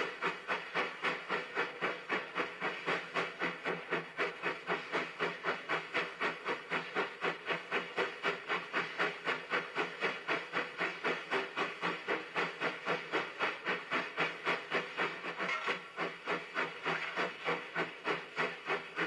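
Steam locomotive running and working steadily, its exhaust chuffing in an even rhythm of about four beats a second over a constant steam hiss.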